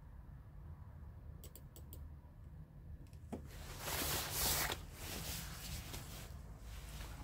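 Cat chewing salami: faint wet clicks from the mouth, with a louder burst of noise lasting about a second some four seconds in.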